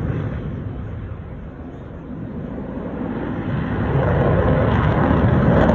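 F-16 fighter jet's engine roar, fading to its quietest about two seconds in, then building again.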